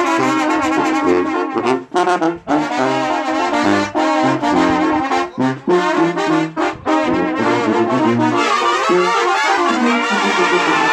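Live Mexican banda playing: trumpets, trombones and clarinets over a stepping bass line, with bass drum, snare and cymbal. The music breaks off briefly a few times in the first seven seconds, then runs on without a break.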